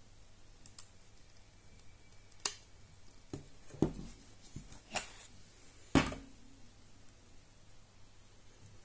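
A handful of short, sharp knocks and clicks as a homemade wooden slingbow is handled; the two loudest come about four and six seconds in.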